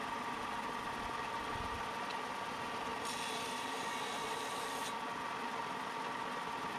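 Ryobi belt and disc sander running with a steady motor whine. About three seconds in, a Stanley plane iron is pressed to the sanding disc for about two seconds, a higher grinding hiss of steel being ground flat, then lifted off while the sander keeps running.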